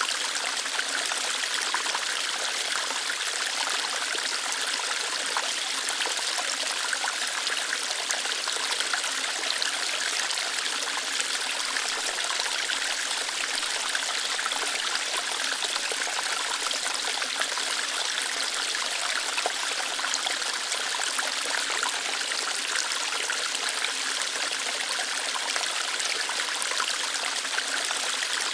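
Small waterfall, water flowing lightly over rocks: a steady, even splashing hiss, mostly in the higher range with little low rumble.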